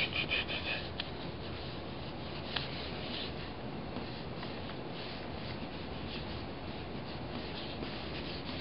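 Two pens scratching and rubbing across a sheet of drawing paper, one in each hand, in short strokes that are quickest in the first second, with one light click a little later.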